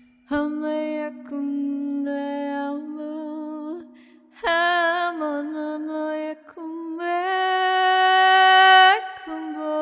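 A woman singing long wordless held tones for sound healing, a few notes in a row with a slight waver, the last one swelling louder before it stops. Under the voice a tuning fork rings on as one steady low tone.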